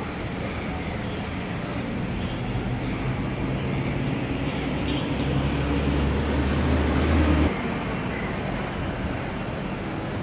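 City street traffic running steadily, with a low engine rumble that builds over a few seconds and cuts off suddenly about seven and a half seconds in.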